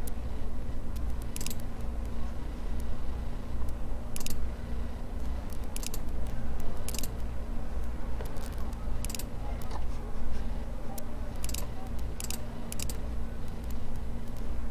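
Scattered sharp computer mouse clicks, about nine or ten over the stretch, every second or two, over a steady low hum.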